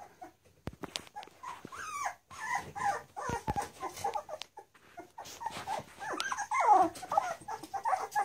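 Labrador puppies whining and whimpering in short, bending cries, loudest near the end, among scattered clicks and knocks.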